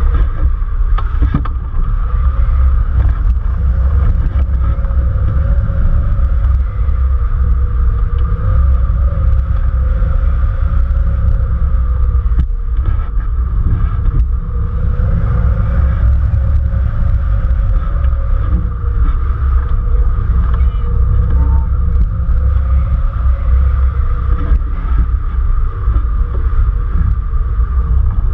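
Rushing air buffeting the microphone of a camera mounted on a hang glider's wing in flight: a loud, steady low rumble with a faint steady whistle above it.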